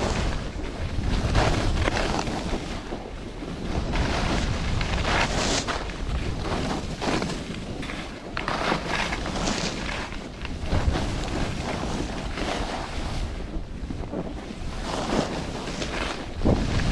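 Wind rushing over the microphone of a skier moving downhill, mixed with the hiss and scrape of skis turning on packed snow, the noise swelling every second or two.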